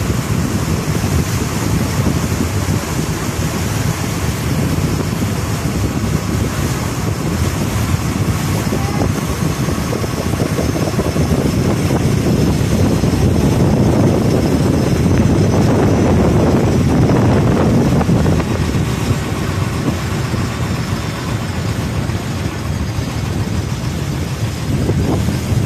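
Wind buffeting the microphone and water rushing past a moving boat: a steady, loud rush that swells somewhat in the middle.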